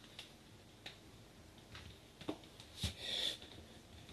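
Quiet room with faint handling noises: a few light clicks and a soft knock, then a brief soft hiss about three seconds in.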